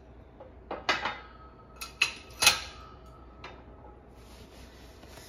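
Sharp metallic clanks and knocks from a bottle-jack hydraulic shop press as its steel pump handle is worked and moved, about six in all, the loudest about two and a half seconds in with a short metallic ring after it. A faint high hiss follows near the end.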